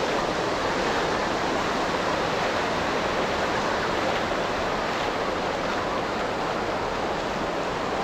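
Ocean surf washing onto a sandy beach: a steady, even wash of waves.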